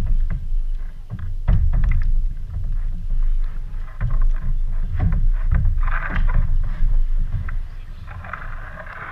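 Plastic kayak hull knocking and bumping against a floating dock as it is held and rocked, with repeated low hollow thumps and water sloshing, picked up through the hull by a camera mounted on the bow.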